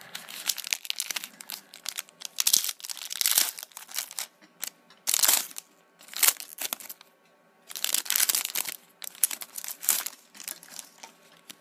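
Foil wrapper of a Pokémon trading card booster pack being torn open and crinkled by hand, in irregular bursts of crackling with short pauses between them.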